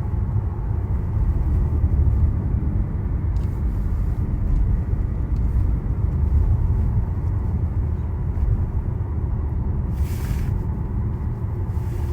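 Car driving on the road: a steady low rumble of tyres and engine, with a short hiss about ten seconds in.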